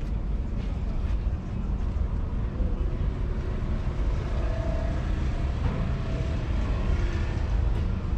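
Wind rumbling on the microphone, a steady rough low buffeting, over the general background noise of an outdoor showground with faint distant voices.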